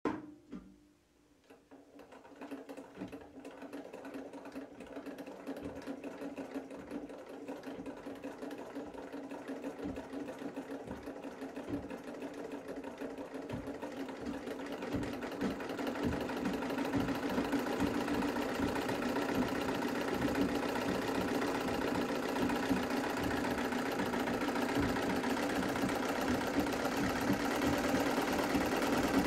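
Lada treadle sewing machine running under foot power, purring with a rapid, even clatter over a steady hum. It picks up speed and grows louder over the first fifteen seconds or so, then runs steadily.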